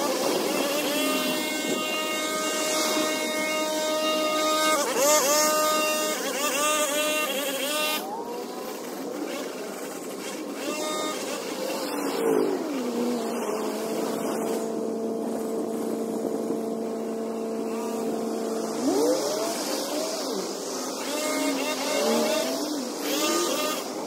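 An engine running at a steady speed, with a quick rise in pitch about five seconds in; its pitch drops about twelve seconds in, holds lower, then rises again about nineteen seconds in.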